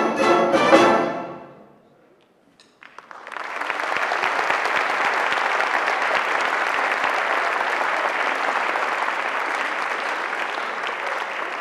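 A wind ensemble's closing chord on brass and woodwinds, which swells and then dies away over the first two seconds. After a brief silence the audience breaks into steady applause that continues.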